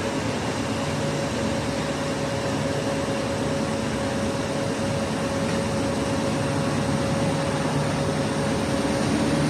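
Diesel-electric train hauled by Alsthom locomotive 4418 running steadily, a continuous engine hum and rolling noise with a held tone, growing a little louder near the end.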